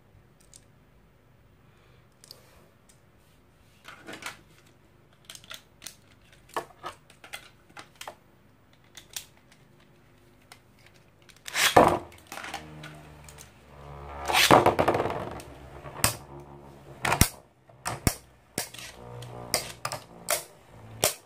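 Two Infinity Nado spinning tops with metal battle rings are launched into a clear plastic stadium about twelve seconds in, then spin with a whirring hum and clack sharply against each other again and again. Before the launch there are scattered light clicks of the tops and launchers being handled.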